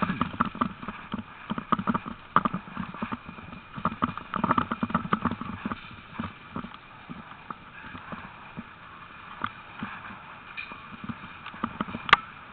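A team of harnessed sled dogs running on a dirt track: a rapid, irregular patter of many paws, busier and louder in the first half, with one sharp click near the end.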